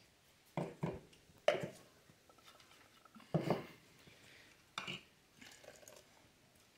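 Kitchen utensils knocking and clattering against pots and the stone counter in a handful of separate, short knocks with quiet gaps between.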